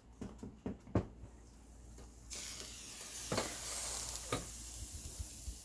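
Sharp clicks of a waffle iron being handled. About two seconds in, a steady hiss of steam and sizzling starts as the lid comes open on waffle batter cooking between the hot plates, with two knocks of the hinged lid and plates.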